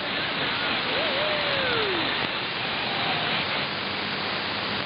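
Perseus shortwave receiver hissing with steady static in AM mode, tuned between stations on the 19-metre band. A few faint sliding whistles drift down in pitch about a second in.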